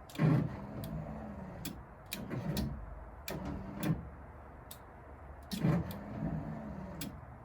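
Triumph TR7 pop-up headlight motor and linkage running in short runs of a second or so as a headlight pod moves, each starting with a clunk, with sharp clicks between.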